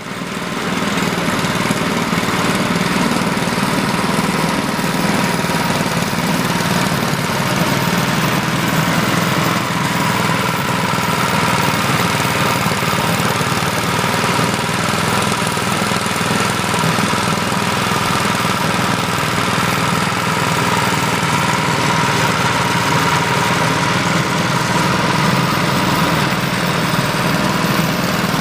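Small air-cooled single-cylinder engine running steadily, turning a homemade boat motor's belt-driven propeller shaft with the propeller spinning in open air.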